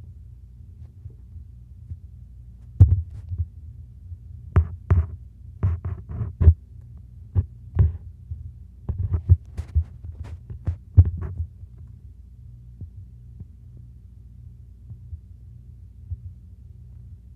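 A cat purring close to the microphone, a steady low throbbing hum. From about three seconds in to about eleven seconds in, a run of sharp knocks and rustles sits over the purr.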